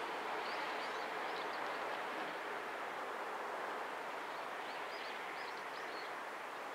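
Steady rumbling noise of a train running past a level crossing, easing off slowly. A small bird chirps a few times about half a second in and again around five seconds.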